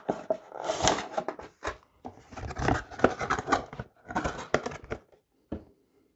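Cardboard box and plastic tray of model frames being handled: rustling and scraping in three bursts, then one short knock about five and a half seconds in.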